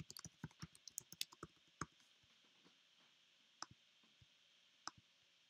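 Computer keyboard typing, faint: a quick run of keystrokes for about two seconds, then two single clicks later on.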